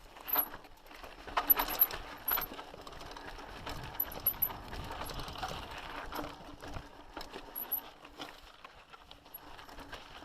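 Mountain bike rattling over a rough trail: irregular metallic clinks and knocks, with the loudest jolts about a second and a half to two and a half seconds in.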